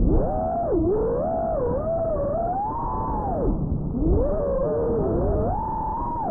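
FPV quadcopter motors whining, their pitch swooping up and down with the throttle: rising, dipping sharply about three-quarters of a second in and again about three and a half seconds in, then climbing high near the end.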